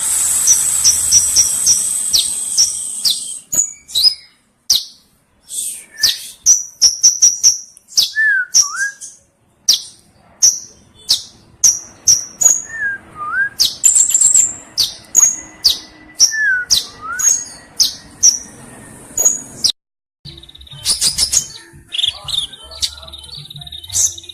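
Sunbird (the 'kolibri ninja') singing energetically: a stream of sharp, high chirps and quick rattling runs, with a few lower swooping whistles mixed in. The song breaks off for a moment about 20 seconds in, then resumes with a held high note among the chirps.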